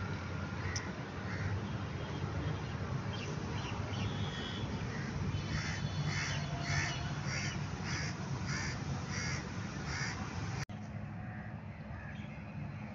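Crows cawing, a quick run of repeated caws at about two to three a second in the middle of the stretch, over a steady low rumble.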